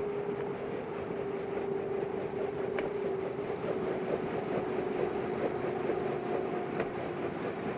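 Light helicopter running on the ground with its rotor turning, a steady engine hum and whine. Two sharp clicks stand out about four seconds apart.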